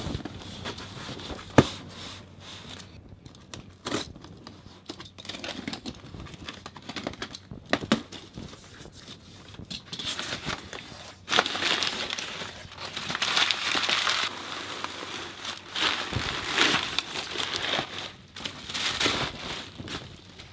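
Cardboard parcel handled and opened by hand: scattered knocks and rustles, the sharpest about a second and a half in, then from about halfway through repeated scratchy tearing and crinkling stretches as packing tape is peeled and torn off the box.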